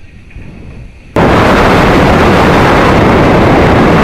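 Loud, steady rushing roar from the rocket in flight, picked up by its onboard camera. It switches on abruptly about a second in, out of a faint rumble, and holds at full level.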